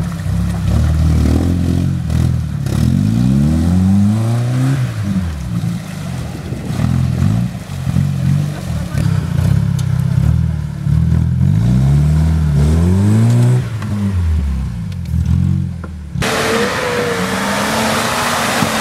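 Suzuki SJ-series off-road 4x4's engine revving up and down over and over as it is driven through mud, each rev a rise and fall in pitch. Near the end it gives way to a steady rushing hiss over a lower, steadier engine, a Jeep Cherokee crawling along the track.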